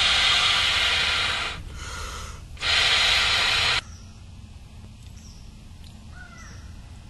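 Aerosol insect-repellent can sprayed in two long hisses, the first about a second and a half, the second about a second, against mosquitoes. After that, birds call a few times in the background.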